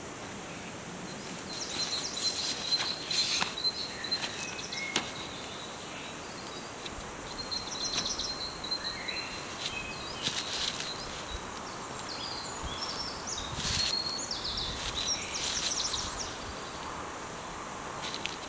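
Woodland birds chirping and trilling on and off, with a thin held note running through much of the middle, over a steady outdoor hiss.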